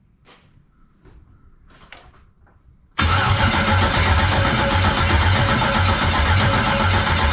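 Starter cranking a 5.3-litre LM4 V8 engine, cutting in suddenly about three seconds in and turning over steadily without the engine starting, during a spark check on a no-start. Before it, a few faint clicks and rustles.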